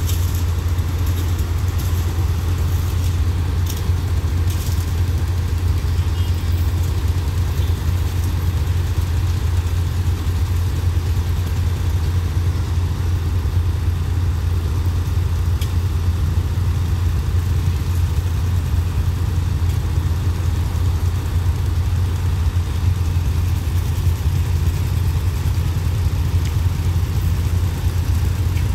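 Diesel engines of track-maintenance machines such as a ballast tamper idling: a steady low drone that does not change.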